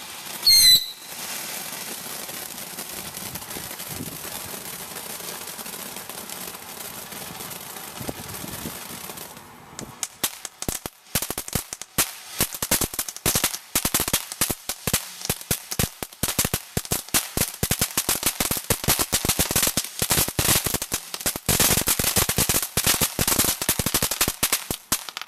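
Ground fountain firework spraying sparks with a steady hiss for about nine seconds, then breaking into dense crackling, many small sharp pops a second, for the rest of its burn. A short high falling whistle sounds right at the start.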